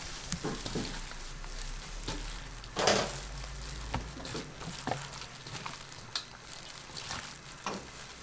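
Plastic-gloved hands mixing and squeezing cooked rice with crumbled seaweed in a stainless steel bowl: crinkling plastic and squishing rice, with scattered knocks against the metal. The loudest knock comes about three seconds in, over a low steady hum.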